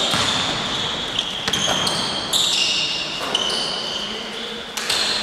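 Basketball shoes squeaking on a hard gym floor during play: a run of short, high squeaks, with a few ball bounces echoing in a large gym.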